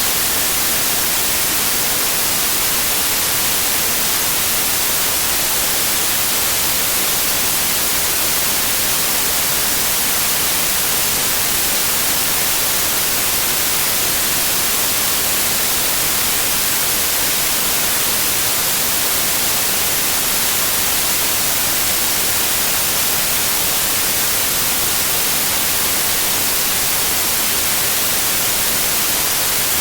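Television static: a steady, loud hiss of no-signal white noise, even and unbroken, weighted toward the high end.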